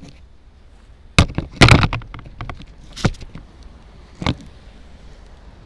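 Sharp knocks and clattering picked up by a downed FPV quadcopter's onboard camera: a loud cluster about a second in, then single knocks near three and four seconds.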